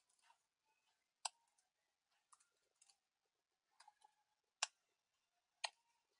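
Faint computer-keyboard keystrokes: about eight separate clicks, spaced half a second to a second apart, as a short line of text is typed slowly.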